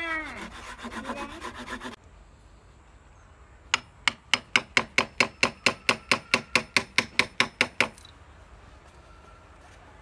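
Wood carving on the trunk of a duối (Streblus asper) bonsai: a couple of seconds of rasping hand-saw strokes, then, after a short pause, a quick steady run of sharp taps, about five a second for about four seconds, as a chisel is hammered into the wood to cut down the scar.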